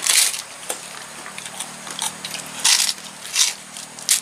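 Eating sounds from a group eating crispy fried fish and rice by hand off banana leaves: about four short crunches, one at the start, two close together past the middle and one at the end, over a faint steady hum.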